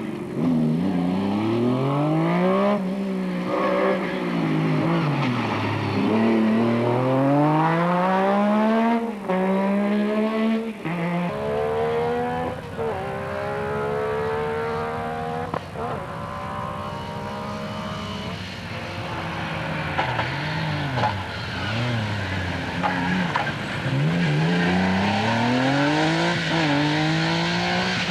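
Metro 6R4 rally car's V6 engine accelerating hard through the gears. The engine note climbs and drops back at each gear change. It eases to a lower, steadier note in the middle, with a couple of short blips, then pulls up again near the end.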